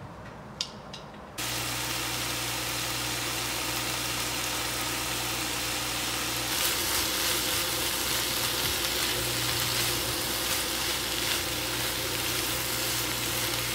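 Pork, napa cabbage and onion sizzling as they are stir-fried in a frying pan, over a steady low hum; it starts abruptly about a second in, and the sizzle grows louder and hissier about halfway through.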